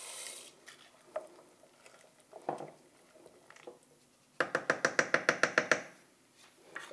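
Soup noodles sliding from a glass bowl into a stainless steel pot with a soft rustle, a few single knocks of a wooden spoon in the pot, then about ten quick even taps, roughly seven a second, of the wooden spoon against the pot.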